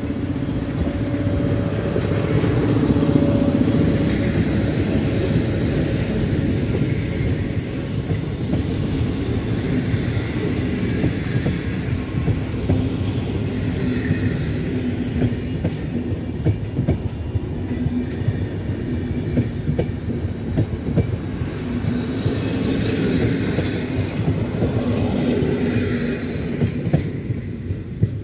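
Intercity passenger train behind an EP07 electric locomotive pulling into a station, its carriages rolling past with a continuous rumble and wheels clicking rapidly over rail joints and points.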